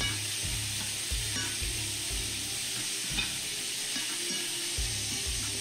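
Shrimp sizzling in hot butter in a cast iron skillet as a metal slotted spatula stirs them around. The spatula scrapes and knocks against the pan about every half second over a steady frying hiss.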